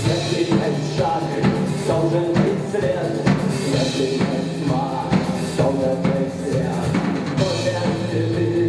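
Live rock band playing: a drum kit keeps a steady beat under sustained instrumental notes.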